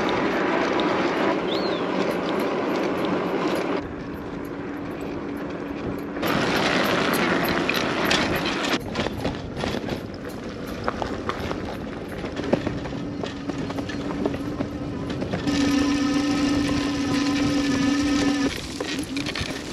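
Fiido T1 Pro electric cargo bike being ridden over tarmac and muddy, leaf-strewn trail: tyre rumble and wind on the microphone, with a steady motor whine coming through in stretches, strongest near the end. The sound changes abruptly several times.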